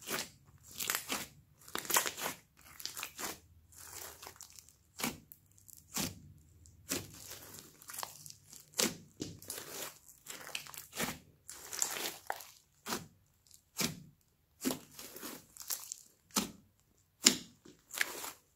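Hands kneading, squeezing and folding a large mass of slime mixed with foam beads: short, uneven squelching and crackling noises, about one or two a second.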